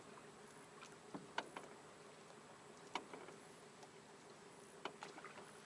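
Near silence: a faint steady hum with a scattering of small, sharp clicks and taps.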